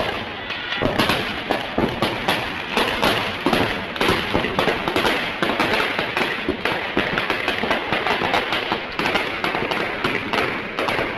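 Firecrackers packed inside a burning Ravana effigy going off in a rapid, unbroken string of bangs, many per second.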